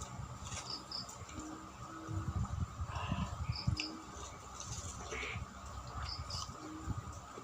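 Close chewing and eating sounds from eating rice and ripe mango by hand, with birds calling in the background: a short high double chirp repeats every couple of seconds.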